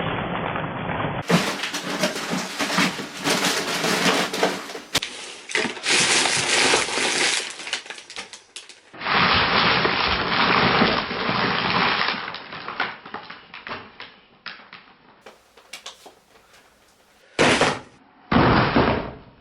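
A run of homemade foley sound effects cut one after another, about six short clips. Most are dense clicking, crackling and crunching noise, with two brief bursts near the end.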